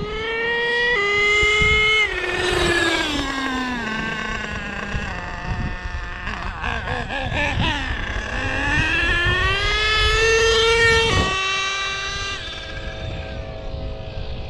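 Nitro engine of an HPI Savage X RC monster truck revving as the truck accelerates. Its pitch climbs, then drops suddenly twice in the first two seconds, the way a gear change sounds, before falling away as the truck slows. It winds up again and steps down sharply once more about eleven seconds in, as the three-speed transmission's shift points are being tuned.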